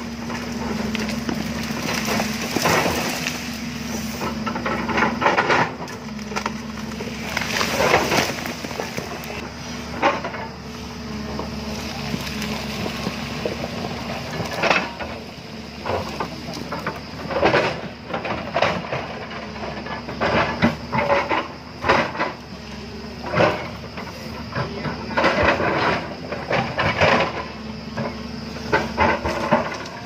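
JCB tracked excavator's diesel engine running with a steady hum as its bucket digs into a hillside, with irregular bursts of scraping and soil and rock breaking loose and sliding down the slope.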